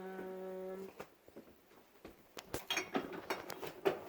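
A brief steady tone lasting just under a second, then a run of clicks and knocks as food items and containers are taken out of a refrigerator.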